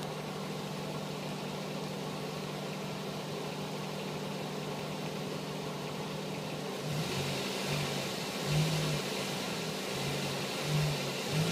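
Car engine running steadily. About seven seconds in it gets louder and a wavering drone comes in, swelling and fading roughly once a second. This is the strange sound the owner hears from his six-month-old car between 1500 and 2000 rpm.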